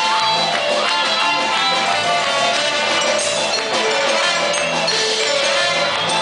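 A dance band playing a steady kolomyjka tune, with melody instruments over a regular drum beat.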